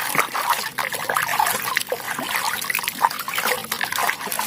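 Water splashing and trickling, with many small clicks and rubbing sounds, as a plastic toy is washed clean of mud.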